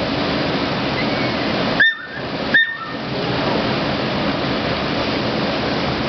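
Glacier-fed waterfall crashing into a pool in a narrow rock gorge: a steady, loud rushing of water. About two seconds in, the rush cuts out briefly twice, each time with a short high tone.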